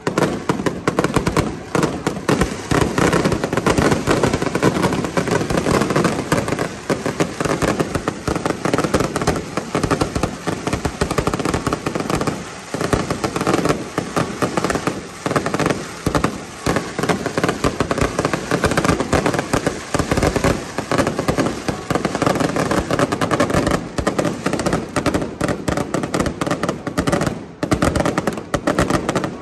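Aerial fireworks display: a rapid, unbroken barrage of bangs and crackling shell bursts, with brief lulls about twelve seconds in and near the end.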